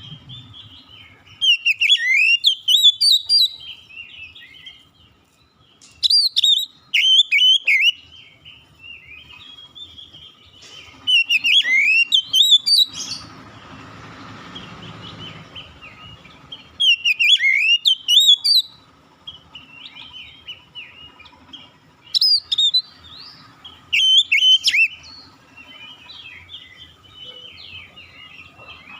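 Oriental magpie-robin (kacer) singing: loud, varied whistled phrases come every four to five seconds, with softer twittering between them. A soft hiss runs for a couple of seconds about halfway through.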